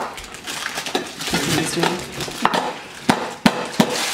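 Clatter of a cake tin and cutlery: a run of sharp knocks and scrapes as a stuck, crumbling cake is worked out of the tin.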